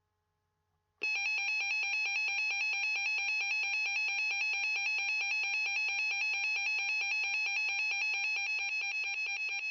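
Weather radio alert tone sounding for a special marine warning: a loud electronic alarm that switches on suddenly about a second in and warbles rapidly and evenly, signalling that a warning message is about to be broadcast.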